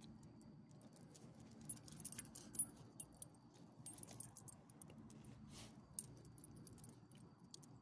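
Metal ID tags on a small dog's collar jingling faintly as the dog moves, in short scattered clusters of bright clinks, busiest about two seconds in and again briefly near four and six seconds.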